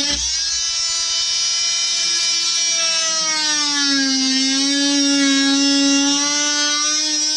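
Corded DeWalt DWE315 oscillating multi-tool running with a wood-with-nails blade, plunge-cutting into wood: a steady high buzzing whine whose pitch sags under load and recovers, dipping most around four seconds in.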